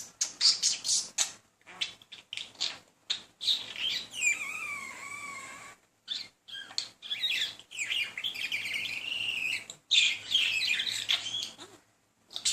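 Budgerigar chattering and warbling: quick clicks and chirps, a stretch of gliding whistles about four seconds in, then rapid chatter from about seven to eleven seconds.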